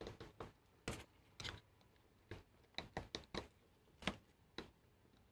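Faint, irregular small metallic clicks and scrapes, about a dozen, as a small screwdriver pries at the soldered metal shield of a cable connector while the solder is being melted to free it.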